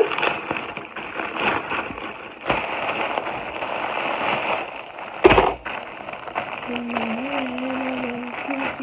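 Plastic mailing bag being handled and pulled open, crinkling and crackling, with one sharp, louder crackle about five seconds in. Near the end a voice hums a low note.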